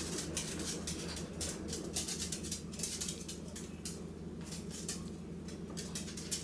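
Poodle mother and pups scuffling on a tiled floor: irregular clicks and patters of claws and paws, over a steady low hum.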